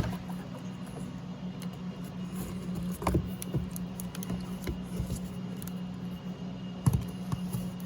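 Small plastic clicks, scrapes and rattles from a door-panel window switch being pried out of its trim with a hand pry tool, with a sharp click at the start and two firmer knocks about three and seven seconds in, over a steady low hum.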